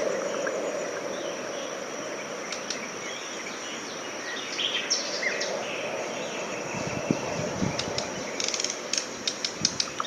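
Outdoor field recording from wooded riverside habitat: a steady background hiss with several small birds chirping and calling. A quick series of dry ticks comes near the end.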